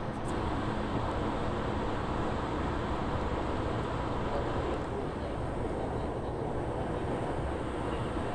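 Toei 10-300 series electric train running at speed: a steady rumble of wheels and running gear at an even level.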